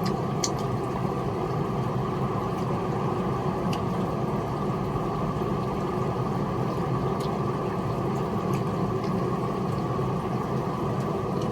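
Steady low engine hum with a few faint clicks now and then.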